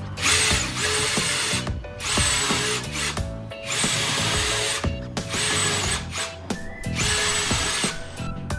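Electric power tool running in about five short bursts of roughly a second each, with a high whine, over background music.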